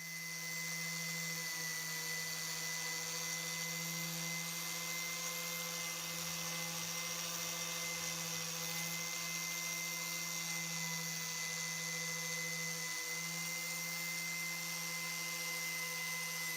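Electric power tool running steadily with a constant motor hum and a thin high whine over a hiss, barely changing in pitch.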